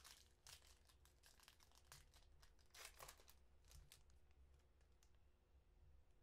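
Faint crinkling and tearing of a Panini Prizm football card pack's foil wrapper being ripped open and handled. The crackles come thick over the first three seconds, loudest about three seconds in, and thin out after about five seconds.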